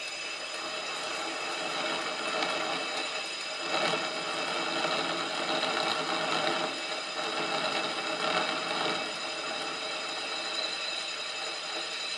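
Milling machine spindle running with a boring head, its cutter taking a cut around a metal shaft for a miniature petrol engine's crankshaft. Under a steady motor whine, the rougher cutting noise swells about two seconds in and eases off near nine seconds.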